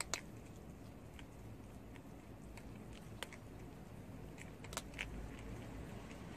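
Prairie dog chewing a piece of green food: a few sharp crunches of its teeth, the loudest right at the start and others about three and five seconds in.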